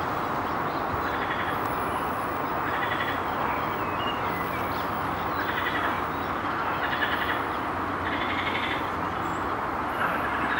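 Outdoor wetland ambience: a steady noise under short pulsed animal calls that repeat about every second and a half, with faint high chirps between them.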